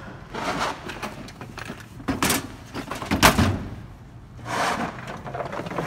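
Clunks and sharp knocks of a steel toolbox cabinet and the tools in it being handled, the two loudest knocks about two and three seconds in, with a longer scraping slide, like a drawer or case being moved, about four and a half seconds in.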